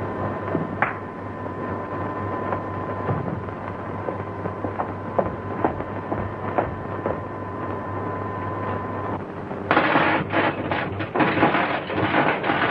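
Steady electrical machine hum with a thin high whine and occasional clicks. Near the end the whine stops and a loud crackle of electric sparks takes over as a high-tension power cable is cut through.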